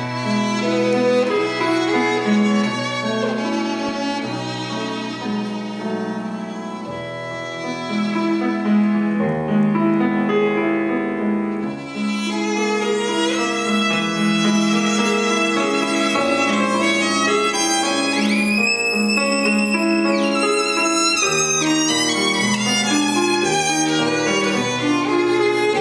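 Violin and grand piano playing a piece together, the violin leading over the piano accompaniment. About three quarters of the way through, the violin holds one long high note with vibrato.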